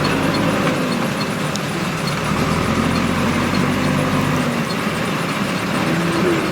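Diesel engine of a JCB 3DX backhoe loader running, its engine note rising and falling as it works.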